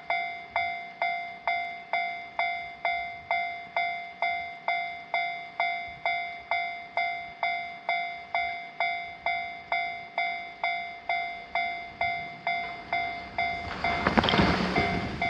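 Japanese railway level-crossing warning bell ringing in an even electronic rhythm, about two strikes a second. Near the end a train passes, its noise swelling briefly above the bell and then fading.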